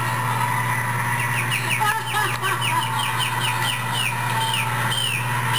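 A run of short, high, falling chirps, clucking-like, starting about two seconds in and repeating three to four times a second, slowing near the end, over a steady low hum.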